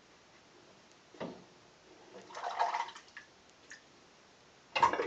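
Handling noises and water at a bathroom sink during a wet shave: a knock about a second in, a splash about halfway, a few small clicks, then a louder rush of water starting just before the end.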